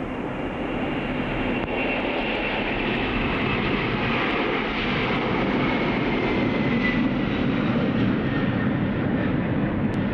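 Aircraft engine running with a steady roar, a thin high whine in it slowly falling in pitch.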